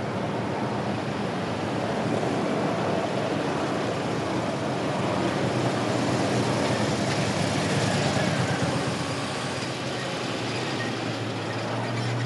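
A motorcade passing close by on a cobbled road: a limousine, police motorcycles and black SUVs going by one after another, engines and tyres loudest about six to eight seconds in as the motorcycles pass.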